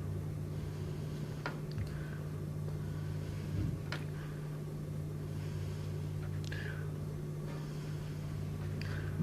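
Gas welding torch flame hissing with a low steady hum, worked on and off lead sheet in the rhythm of an upright lead weld. A sharp tick, followed by a short falling squeal, comes about every two and a half seconds.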